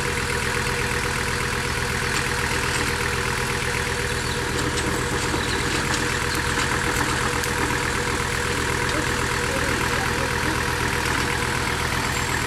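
Engine of a GAZ-69 special 4x4 idling steadily.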